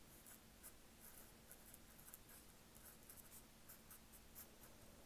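Felt-tip marker writing a signature on brown paper, with faint, short scratchy strokes.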